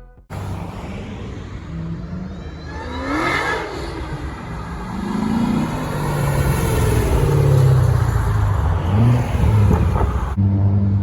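Loud muscle car engines revving and accelerating, the pitch rising and falling several times. Near the end a sudden cut brings in another engine rumbling steadily.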